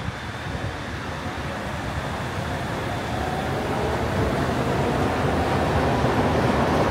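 Shonan Monorail suspended train running on its overhead track: a steady rushing rumble that grows louder, with a faint whine rising slightly in pitch over the second half.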